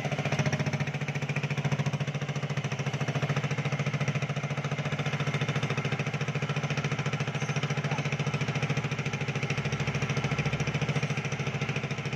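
A machine's motor or engine running steadily, with a fast, even pulsing drone.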